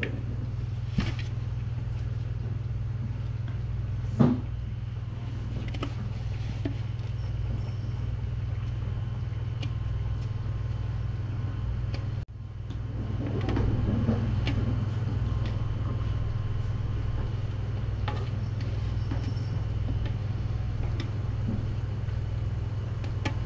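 Steady low hum of room noise with a few light knocks and taps, one sharper knock about four seconds in and a slightly busier stretch just after the middle.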